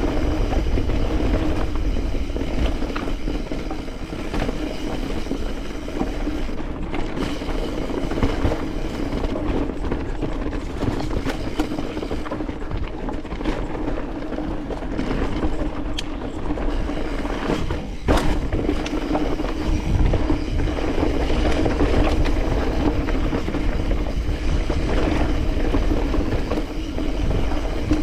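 Mountain bike rattling steadily as it rides down a rocky trail, with many small clicks and knocks from the bike over the rocks and a low rumble of wind on the microphone.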